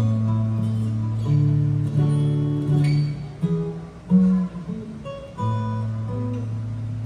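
Solo acoustic guitar playing an instrumental passage: a held low bass note under changing picked melody notes, with one louder pluck about four seconds in.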